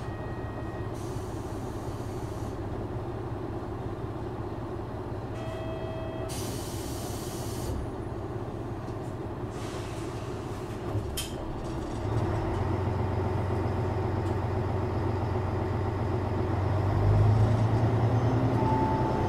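JR Shikoku 1000 series diesel railcar standing with its engine running at idle, with three bursts of air hissing from the brakes. The engine note grows louder about twelve seconds in and again near the end.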